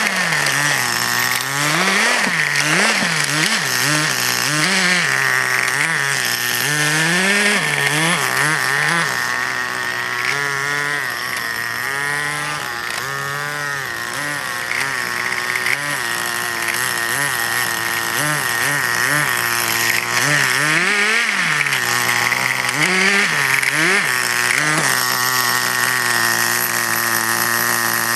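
Small two-stroke nitro glow engine of a 1/10-scale RC crawler truck, running and revving up and down over and over as the truck is driven, with a steady high whine alongside. It is a little fainter around the middle, while the truck is farthest away.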